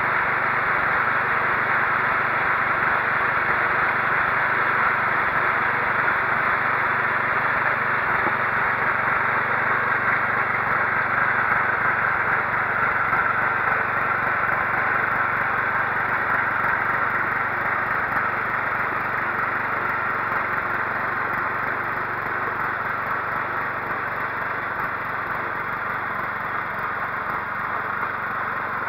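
Riding lawn mower engine running steadily, easing slightly in level in the last third.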